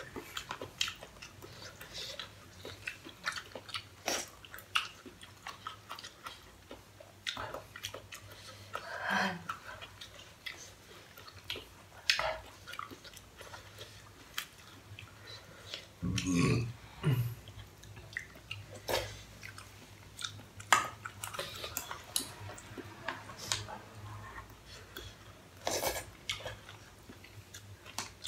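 Close-up eating sounds of pasta: wet chewing, with scattered sharp clicks of chopsticks against the pan.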